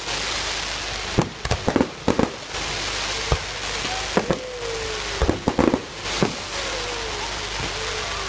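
Fireworks display: repeated sharp bangs over a dense, steady crackling hiss from the bursting stars. Several high whistles slide downward in pitch.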